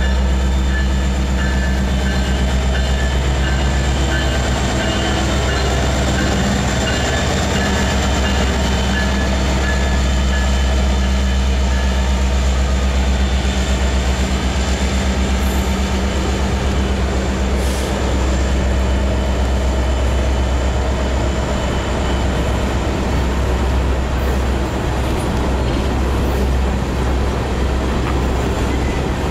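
Two BNSF diesel-electric locomotives, an SD70ACe and an SD70MAC with EMD 710 two-stroke V16 engines, pass close by under power with a steady engine drone that eases after about twelve seconds. The empty coal cars behind them follow, rolling steadily by with wheel and rail noise.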